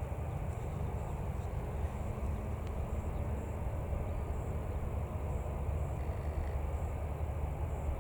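Airbus A321 airliner's jet engines heard from the ground as a steady low rumble on its landing approach.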